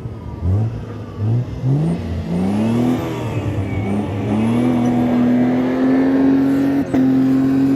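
Off-road 4x4 engine revved in three short blips, then revved up and held at high revs while the vehicle drives up a sand dune, with a brief dip near the end before the revs fall away.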